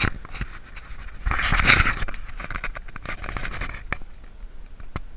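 Close rustling and scratching with scattered clicks while a small largemouth bass is lowered by hand into the pond for release. A louder burst of rustling comes about a second and a half in.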